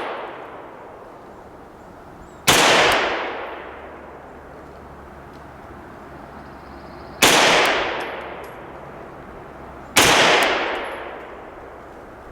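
Three slow, deliberate single shots from a Sig Sauer P226 Legion SAO 9mm pistol, a few seconds apart. Each crack is followed by a long echoing tail.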